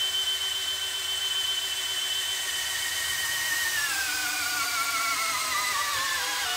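DeWALT DCD999 FlexVolt Advantage hammer drill running in low gear against a brake dynamometer: a steady motor and gear whine. About four seconds in the pitch starts falling as the brake loads the drill and slows it toward stall.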